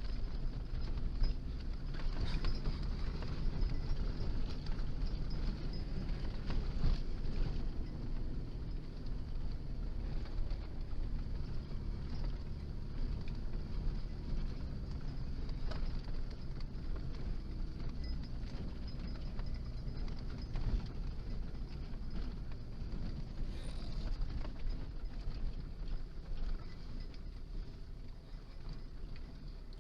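Low, steady wind rumble on the microphone, with a few faint clicks and rustles scattered through.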